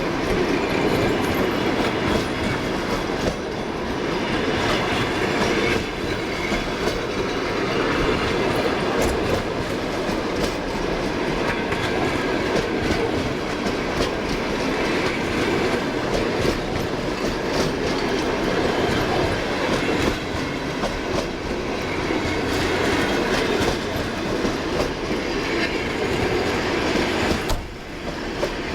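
Passenger train carriages rolling past steadily as the train pulls out, wheels clicking over rail joints.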